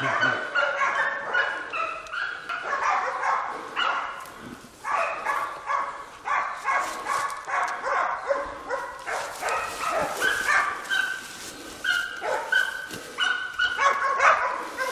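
Several hunting dogs barking and baying without pause in short, overlapping barks around a wild boar that they are holding at bay.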